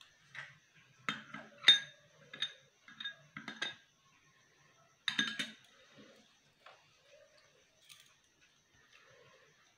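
Close-miked eating sounds: a spoon clinking on crockery along with mouth and chewing noises, in short bursts. The bursts come thick in the first few seconds and again around halfway, then a single light clink.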